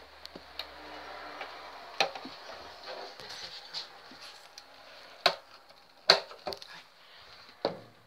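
Hands working at a top-loading washing machine: rustling as laundry is pushed into the drum for the first few seconds, then several sharp knocks and clicks against the machine. The loudest knock comes about six seconds in.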